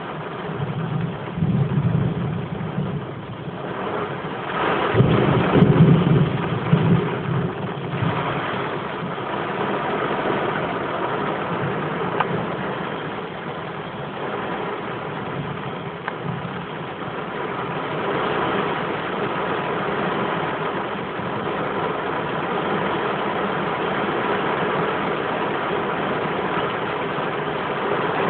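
Heavy rain falling steadily during a severe thunderstorm, with thunder rumbling about a second in and again, loudest, from about five to seven seconds in.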